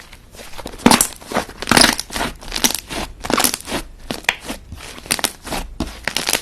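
Slime being squeezed and pressed by hands, making repeated crackly, sticky squishes about twice a second, the loudest about a second and two seconds in.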